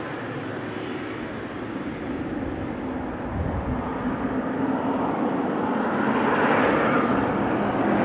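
Boeing 777-300ER's GE90 jet engines roaring as the airliner rolls out along the runway after touchdown, the roar growing louder and brighter over the second half.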